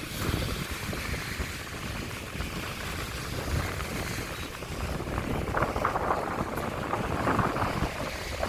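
Strong wind buffeting the microphone over the rush of sea waves breaking on the shore.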